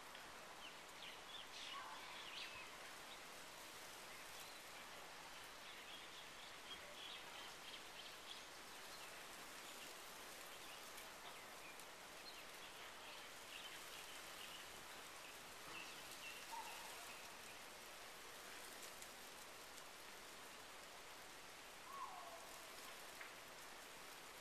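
Faint, steady rain falling on tropical vegetation, with birds chirping now and then and a few short falling calls, the clearest near the end.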